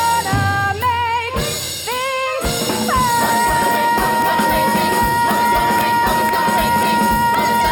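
Musical-theatre singing with a band: short sung phrases, then one long held high note about three seconds in, over a steady beat of about two drum hits a second.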